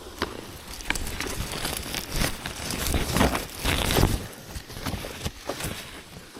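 Leaves, vines and undergrowth rustling and crackling as a hiker scrambles through them on a steep slope, with scattered sharp snaps and knocks and low bumps, loudest about midway.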